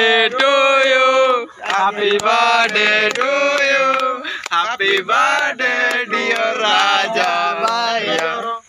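Male voices singing a chant-like tune with long held notes and sliding pitch, stopping abruptly near the end.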